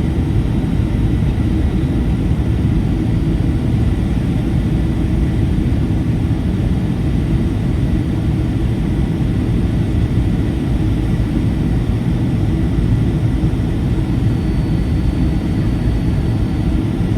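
Steady low rumble of a Boeing 757-300's cabin on final approach: airflow and its Rolls-Royce RB211 engines, with a faint steady whine on top.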